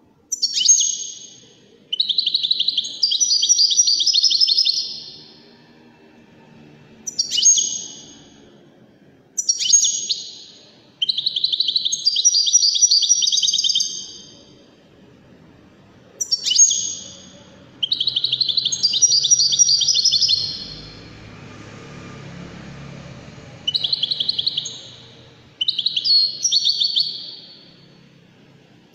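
Caged Moroccan 'widani' European goldfinch singing: repeated phrases, most opening with a sharp falling note and running into a fast, high twittering trill of one to three seconds, separated by short pauses.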